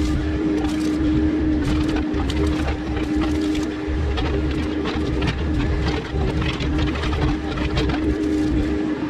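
Mini excavator engine running under load with a steady hydraulic whine, and scattered snaps and cracks as the bucket works through brush and branches.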